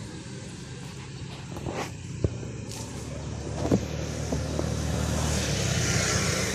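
A motor vehicle's engine running steadily and growing louder as it approaches and passes, with a few small clicks in between.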